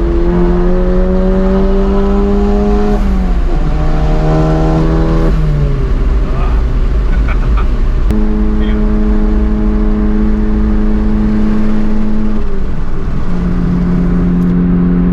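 Modified VW Golf GTI Mk7's turbocharged four-cylinder engine, with an aftermarket downpipe and catback exhaust, pulling under load while driving. Its pitch drops at three gear changes, and there is a short off-throttle stretch without engine tone about a third of the way in.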